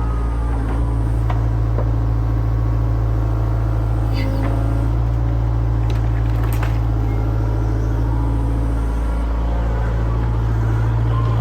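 A heavy machine's engine running steadily with a deep, unbroken drone, with a few short knocks or clanks now and then.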